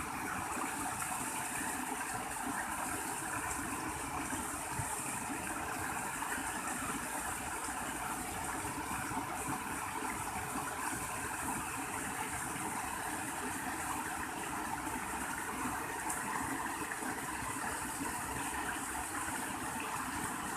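Small river's water running steadily, an even rushing noise with a constant high hiss above it.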